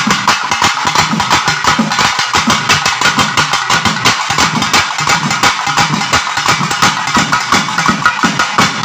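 Traditional Tamil temple-festival drumming: a drum ensemble beating a fast, steady rhythm, many strokes a second, loud and unbroken.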